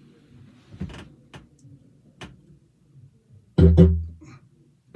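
Didgeridoo: a few faint clicks at first, then about three and a half seconds in a short, loud blast of its low drone that dies away within a second.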